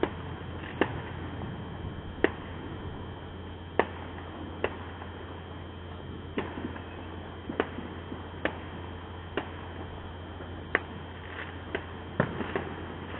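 Distant fireworks going off: about a dozen sharp cracks and bangs at irregular spacing, roughly one a second, over a steady low hum.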